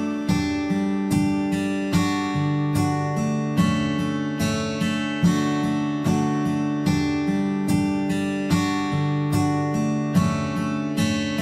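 Acoustic guitar strumming chords in a steady rhythm, an instrumental passage of the song with no singing.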